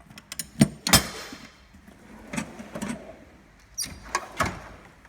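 Metal drawers of a Snap-on Classic 78 toolbox being shut and opened: a string of clunks, the loudest about a second in followed by a short sliding rattle, with more knocks later.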